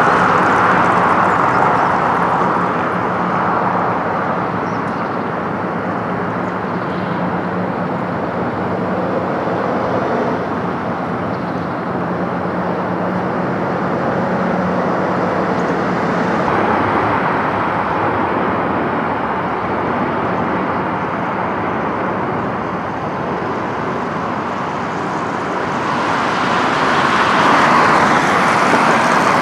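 Road traffic noise from cars passing along the embankment road, a steady rumble, with a steady low hum through the first half that stops about halfway. Near the end the traffic swells as a car passes close.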